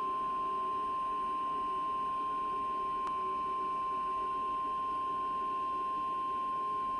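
NOAA Weather Radio warning alarm tone, one long steady single-pitched beep, played through a Midland weather alert radio's speaker. It signals that a warning is about to be read, here a severe thunderstorm warning. A faint click comes about three seconds in.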